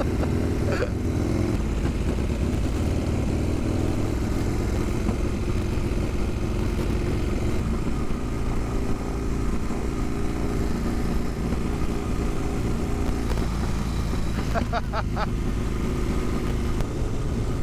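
Harley-Davidson Sportster V-twin engine running steadily as the motorcycle rides along.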